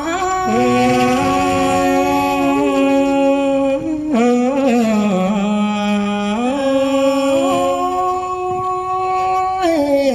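Hát Thái folk singing: a voice holding long, drawn-out notes that slide slowly up and down in pitch, with only a few breaks.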